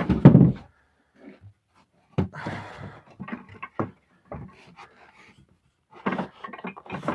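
Pallet wood pieces being handled and fitted together: a heavy wooden thump just after the start, then scattered knocks and a short scrape, with another run of knocks near the end.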